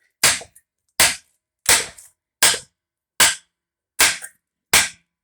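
A hammer striking shims wedged into the slots of a wooden pallet, seven sharp blows at a steady pace, about one every three-quarters of a second. The shims are driven in to force the pallet boards apart.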